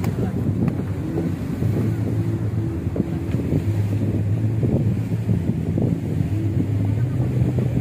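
A passenger boat's engine running steadily under way at sea, a low even hum, with wind on the microphone.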